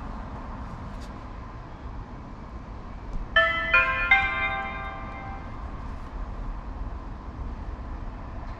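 Video doorbell chime ringing: three quick bright notes about three and a half seconds in that ring on and fade over about two seconds, over a steady low rumble.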